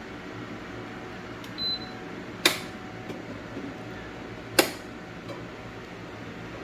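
Top-loading air fryer being opened: two sharp plastic clicks about two seconds apart, with a short faint beep before them, over a steady low hum.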